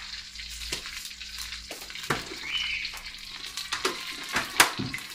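Cumin seeds sizzling in hot oil in a metal karahi, a steady hiss with many scattered small clicks, stirred with a wooden spoon; one sharper knock about four and a half seconds in.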